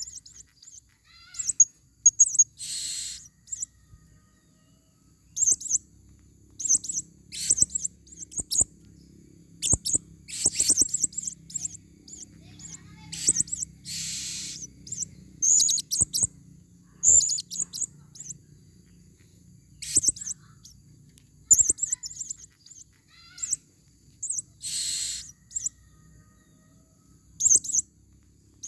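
Female blue-crowned hanging parrots (serindit) calling: clusters of short, high-pitched chirps every second or two, with three longer, harsher shrill calls spread through.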